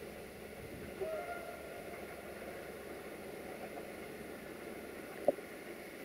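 Distant diesel locomotive horn (GM 64-0974-7): one short blast about a second in, heard faintly over a steady background hiss. A single sharp knock near the end is the loudest sound.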